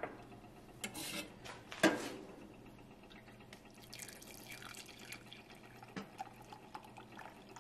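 Water poured from a stainless steel kettle into a ceramic mug over a tea bag: a faint, thin trickle with drips. A couple of sharp knocks come in the first two seconds, before the pour.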